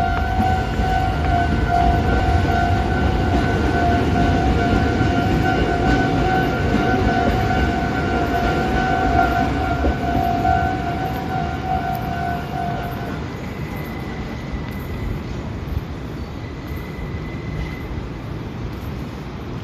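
Kobe Electric Railway commuter train standing at the platform with a steady low running hum. Over it a steady pitched signal tone rings and cuts off suddenly about two thirds of the way through.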